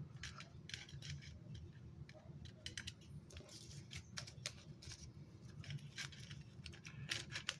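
Light, scattered clicks and taps of small items being handled and packed into a small tin.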